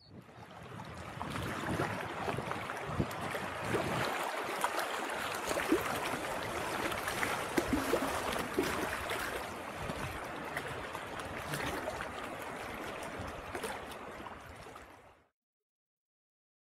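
Water lapping and splashing at the shore, a dense, continuous patter of small splashes and gurgles. It fades in at the start and cuts off near the end.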